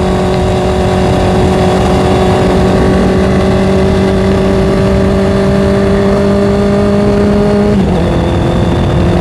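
Honda CBR650R inline-four engine running at a steady cruising note under way, with wind and road noise around it. Near the end the pitch falls quickly and settles on a slightly lower steady note.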